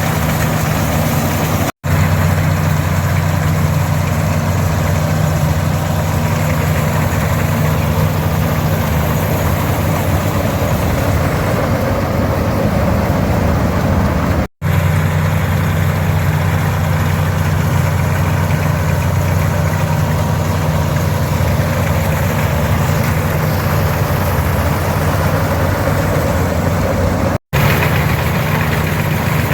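An International 460 tractor's six-cylinder D-282 diesel running steadily under load as it pulls and drives a pull-type combine, mixed with the combine's machinery clattering. The sound breaks off for an instant three times.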